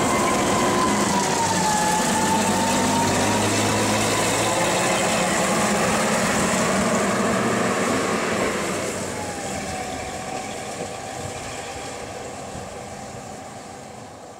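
Köf II diesel shunting locomotive's engine running steadily, with a whine that wavers and dips in pitch. From about eight and a half seconds in, the locomotive pulls away and its sound fades into the distance.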